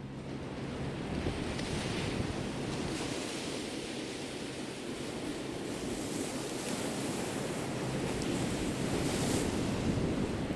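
Sea waves washing onto a beach, the surf swelling and easing, with wind buffeting the microphone. A low steady hum is heard underneath and stops about a second in.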